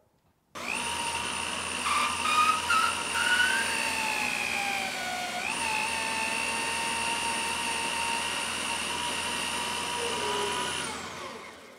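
Electric drill spinning a long cork reamer while a cork grip is worked along it to open up the bore. The motor's whine starts about half a second in, sags in pitch under load around four to five seconds, picks back up, and winds down near the end.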